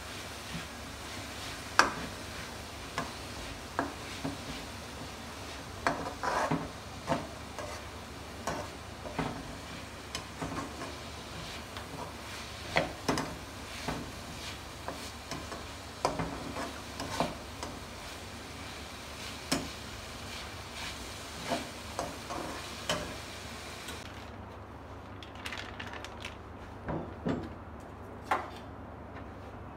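Metal slotted turner scraping and clinking against a frying pan as chopped vegetables are stir-fried, with irregular knocks about once a second over a steady hiss. Near the end the hiss drops away and a few softer knocks follow.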